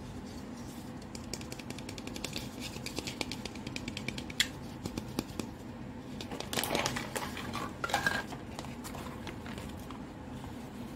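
Clear plastic wrapping crinkling and hollow plastic toy fruit clicking and tapping as it is unwrapped and handled. Many quick small clicks in the first few seconds, one sharp click about four seconds in, and louder crinkling around six and a half and eight seconds in.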